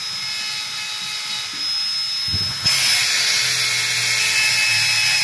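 Electric die grinder with a mounted grinding stone running in a stripped bolt hole of a tractor diesel injection pump body, a steady high whine with grinding noise, growing louder about two and a half seconds in as it bites into the metal. The stripped thread is being ground out so the hole can be re-threaded.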